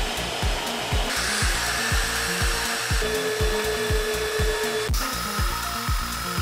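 Evolution magnetic drill running a twist bit through a steel plate, its motor giving a steady whine that jumps in pitch a few times. Background music with a steady beat about twice a second plays underneath.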